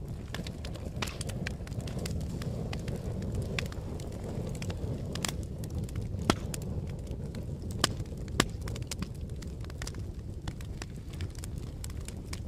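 Fire crackling: a steady low rumble of flames with a constant scatter of sharp pops, and a few louder pops around the middle.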